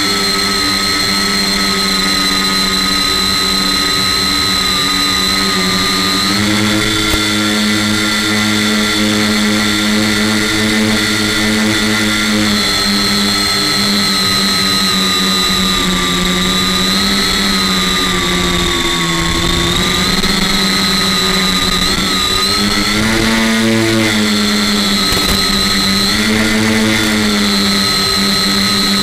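Electric tricopter's motors and propellers whining, heard up close from the craft's own camera. The pitch steps up about six seconds in, then rises and dips several times as the throttle changes in flight.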